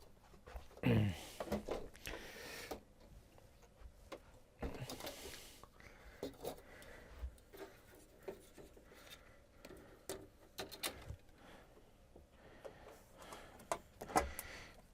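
Scattered clicks, knocks and rustling of hands working on an LED TV set, with a few longer scraping stretches.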